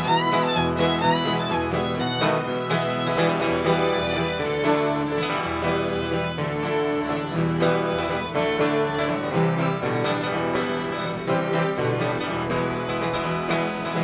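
Bluegrass-style string band music: several fiddles playing the tune over a strummed acoustic guitar, with a cello in the bass.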